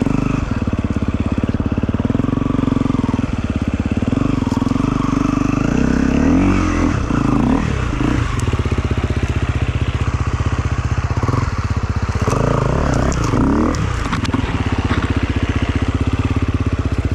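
Motorcycle engine running steadily, revved up and back down in short swells about six to eight seconds in and again around twelve to fourteen seconds in, as the bike is worked over concrete obstacles.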